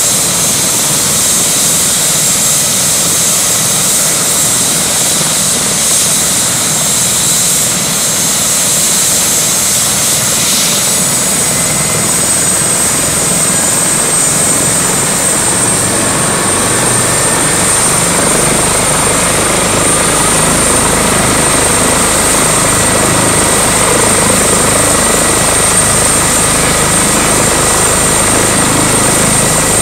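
Airbus H145 (EC145 T2) helicopter running on the ground with its main rotor turning: a steady high turbine whine from its twin turboshaft engines, which rises a little in pitch about a third of the way in. A deeper rotor noise builds in the second half, and the overall sound grows slightly louder.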